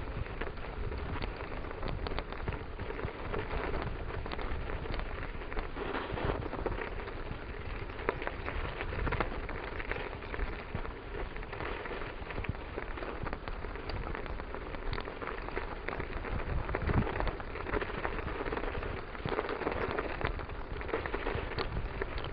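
Steady, dense crackling and rattling from a bicycle ridden over a snowy, rutted field track: tyres on snow and jolts of the ride knocking through the bike-mounted camera, over a constant low rumble.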